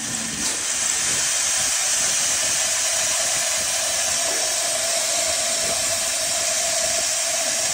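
10 hp cattle feed grinder running at speed and grinding, a steady rushing noise with a constant mid-pitched hum.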